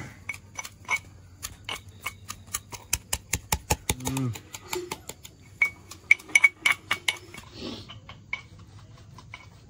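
Metal pestle pounding garlic and green chillies in a small aluminium mortar: repeated uneven strikes, about three a second, with metal-on-metal clinks that ring briefly, thinning out near the end.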